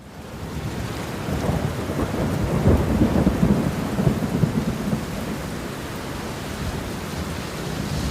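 Heavy rain, with a roll of thunder rumbling low underneath that swells in and is loudest about three seconds in, then eases back to steady rain.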